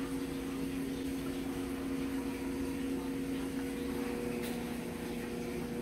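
A steady hum from a running appliance motor, several pitches held at once over a faint hiss.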